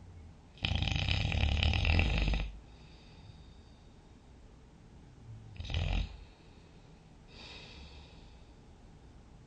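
A sleeping person snoring: a loud, rattling snore starts abruptly about half a second in and lasts nearly two seconds. A shorter snore follows around six seconds, then a faint breath.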